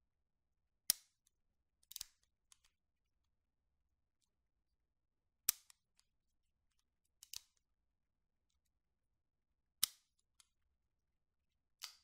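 Springfield Armory 1911 pistol's hammer thumb-cocked and dropped, three times over: each time a single sharp metallic click of the hammer falling, then a second or two later a quick cluster of lighter clicks as the hammer is cocked back.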